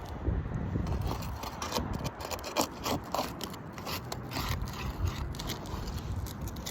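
A tool scraping and tapping under brittle asphalt roof shingles, irregular scrapes and sharp clicks as it works to get underneath them to lift them.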